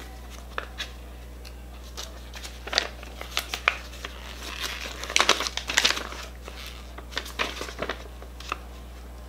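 Paper crinkling and rustling as an instruction leaflet and its packaging are handled and unfolded, in scattered bursts that are busiest about three and five to six seconds in.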